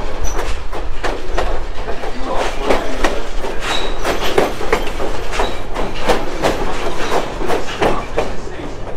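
Lehigh Gorge Scenic Railway passenger train rolling along, its wheels clattering in a steady run of irregular clicks and knocks over the rail joints, with a low rumble underneath. A brief high wheel squeal comes about four seconds in.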